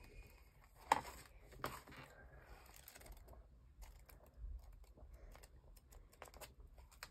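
Paper pages of a hardcover graphic novel being leafed and riffled through by hand: faint, quick flicks and ticks, coming in several short runs.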